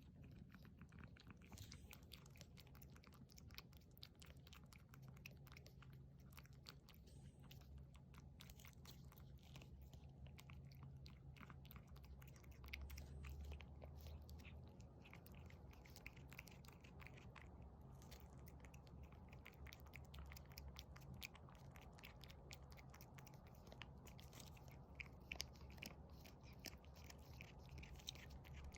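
A cat eagerly eating a Churu paste treat: faint, rapid wet smacking and chewing clicks, over a steady low hum.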